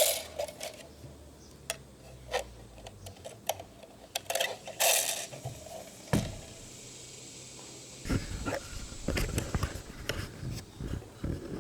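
Plastic and metal parts of a fuel pump assembly clicking and rattling as they are handled and fitted back together. There is a louder knock about six seconds in, then a spell of knocking and rubbing.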